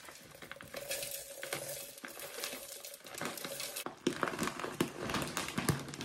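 Nature C3 soy wax flakes being poured out of a plastic bag into an aluminium pouring pitcher: the bag crinkles and the flakes patter and tick against the metal.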